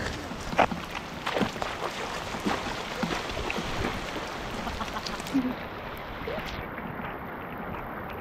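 Steady rain falling on a flooded rice paddy, with a few sharp splashes of water, the loudest under a second in.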